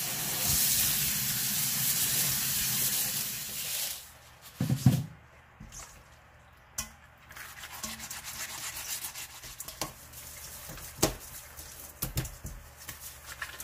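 Tap water runs into a stainless steel bowl of catfish in a kitchen sink for about four seconds, then a single knock. After a short quiet stretch, gloved hands scrub the catfish with coarse salt in the steel bowl, a gritty rubbing with small clicks, to strip the slime from the skin.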